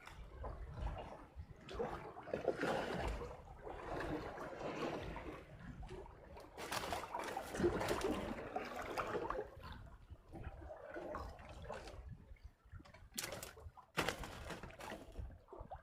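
Water sloshing and trickling in irregular rushes, with a couple of sharp knocks near the end.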